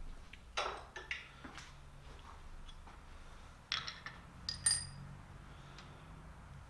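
Scattered light metallic clinks and taps as small parts and tweezers are handled on a metal bench. One clink, about four and a half seconds in, rings briefly with a high tone.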